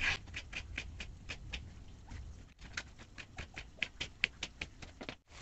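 Kitchen knife slicing a tomato on a plastic cutting board: a run of quick, light taps of the blade against the board, about five a second, with a brief break about halfway.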